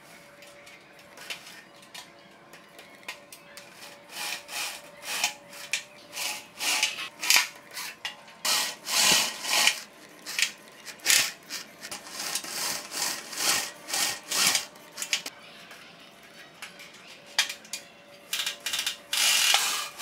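Power drill running in many short bursts, drilling into and driving screws through thin stainless steel to fasten hinges and a latch onto a washing machine drum. The bursts come in quick succession, loudest in the middle, with a pause before a last cluster near the end.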